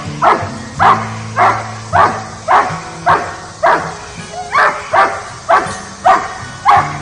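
A young dog barking steadily at a helper in Schutzhund protection work, about two sharp barks a second. This is a guarding bark aimed at the decoy.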